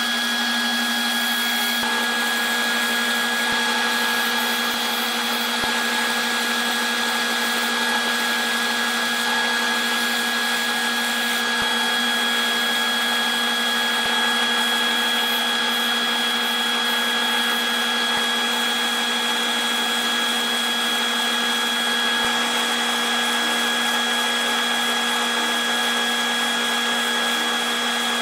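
Grizzly wood lathe running at a steady speed with a constant whine, and a steady rubbing hiss from a gloved hand pressed against the spinning aromatic cedar bowl.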